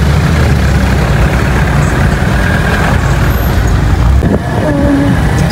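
Dense slow city traffic heard from a motorcycle riding through it: a steady low rumble of engines and road noise. Near the end a wavering higher tone joins in.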